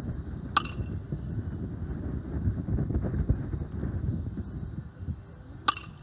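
Baseball bat hitting a pitched ball twice, about five seconds apart, each a sharp crack with a brief ring. Wind rumbles on the microphone throughout.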